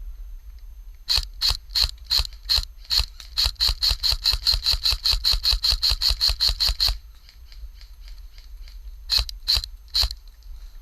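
Airsoft gun firing about two dozen shots in quick succession, speeding up to about five a second, then three more shots near the end.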